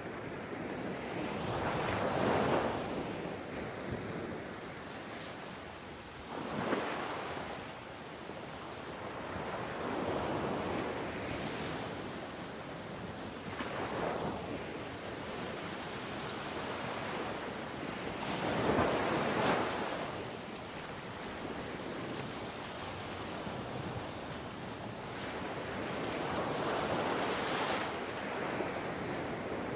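Ocean waves breaking and washing up on a shore, a loud swell of surf every four to five seconds over a steady rushing background.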